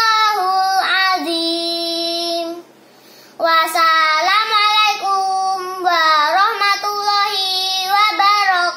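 A five-year-old boy chanting in a drawn-out, melodic recitation style: long held notes that bend in pitch, in two phrases with a short pause between them.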